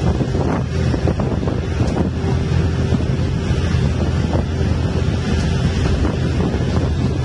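Wind buffeting the microphone of a camera held out of a moving bus's window, over the steady low rumble of the bus running uphill and its road noise.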